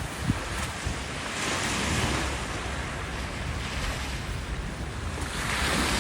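Sea surf washing on the shore, swelling twice, once about a second and a half in and again near the end, with wind buffeting the microphone.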